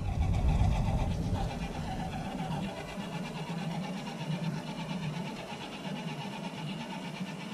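Electric motor and gears of a radio-controlled scale pickup truck whining steadily as it drives off towing a small trailer, fading as it moves away.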